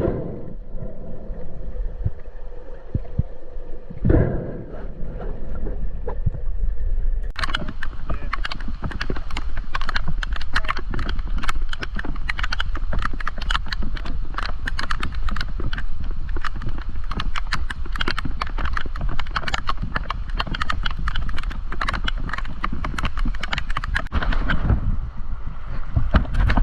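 Rapid, irregular clattering: many sharp clicks and knocks a second, starting about seven seconds in and easing off near the end, after a low rumble with one thump.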